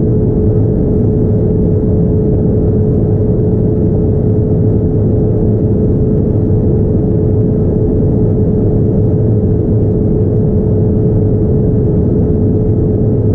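Steady cabin rumble inside a Boeing 787-9 airliner, with a constant hum held on one pitch above it.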